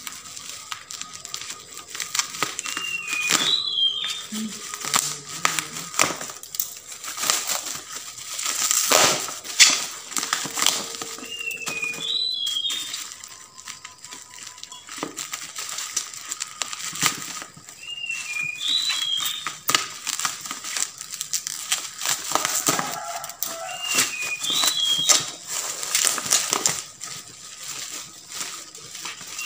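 Black plastic bubble wrap and packing tape crinkling and crackling as it is cut with scissors and pulled open by hand, in irregular bursts. A short high chirp repeats every five or six seconds behind it.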